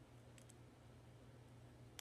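Near silence with a low steady hum, broken by faint clicks of small plastic Lego pieces being handled: two close together about half a second in and a sharper one at the end.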